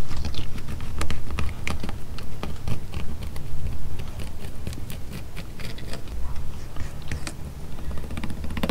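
Fillet knife cutting down the middle of a flounder's back on a plastic fillet table: a run of small irregular clicks and crunches as the blade goes through skin and flesh and ticks on the board, over a steady low rumble.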